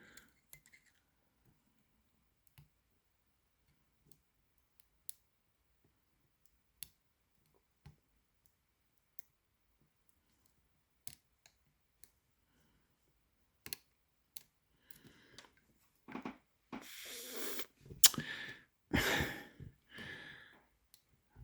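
Faint, sharp clicks of a lock pick and tension wrench working the pins in the keyway of a Shield C30MKR padlock, scattered about once a second. The pins are hard to set because the lock is so hard to tension. In the last few seconds come several louder, longer scraping and rustling noises.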